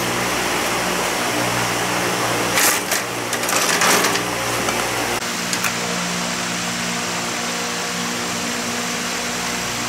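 A steady mechanical hum, with a stretch of metallic clinking and rattling from hand tools being worked on a motorbike engine about three seconds in.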